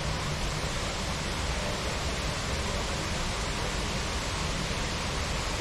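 Steady rush of a jungle waterfall: water falling and splashing in an even, unbroken noise.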